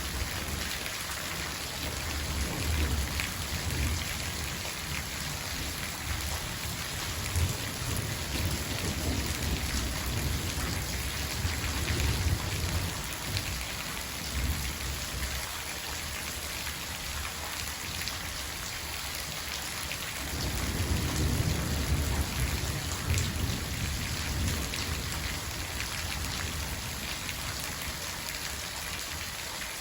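Steady rain falling, with several low rolls of thunder rumbling under it, the strongest about two-thirds of the way through.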